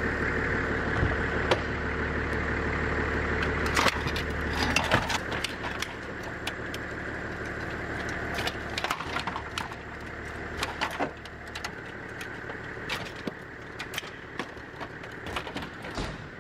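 Clicks, knocks and rattles of plastic trim, wiring and metal parts being pulled out of a wrecked car's dashboard by hand, over a steady low hum that stops about twelve seconds in.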